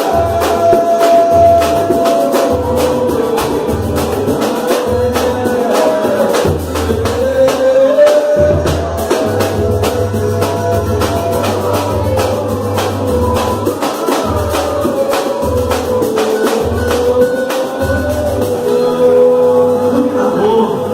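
A samba (pagode) group playing live: a sung melody over dense, quick percussion strokes and a pulsing bass line.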